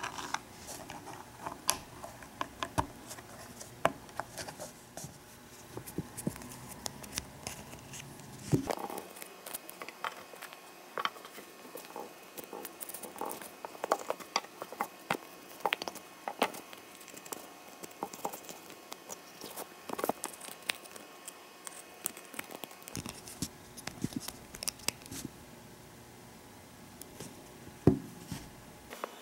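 Small plastic figure parts being handled: scattered clicks, taps and light scrapes as a Nendoroid figure's face plate and cap are pulled off and pressed back on. The sharpest click comes near the end.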